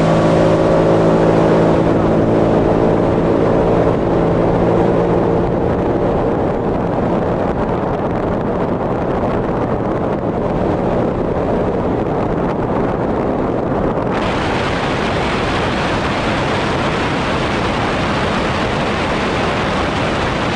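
Sea-Doo FishPro 170 personal watercraft running at speed, its engine note plain at first, then buried under steady wind buffeting and water noise that turns hissier about two-thirds of the way through.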